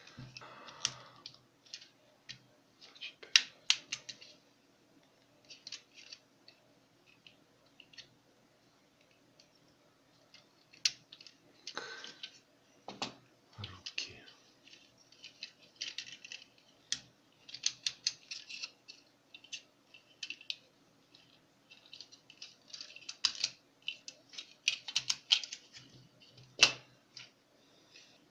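Hard plastic parts of a Tobot Tritan transforming toy being handled, folded and snapped together by hand. Irregular light clicks and clacks of plastic joints, with a few sharper snaps.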